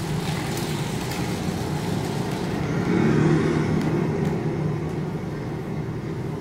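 Recorded street traffic played over loudspeakers as the electronic part of the piece: a steady rumble of passing vehicles that swells about three seconds in and then eases off.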